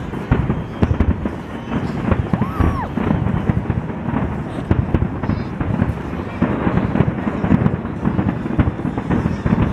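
A large fireworks display, shells bursting in a dense, continuous volley, bangs following one another several times a second.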